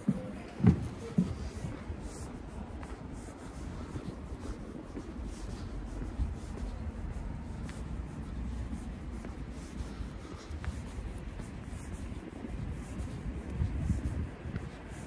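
Footsteps scuffing along stone paving at a walking pace, about two a second, over a low wind rumble on the microphone. A couple of sharp knocks about a second in.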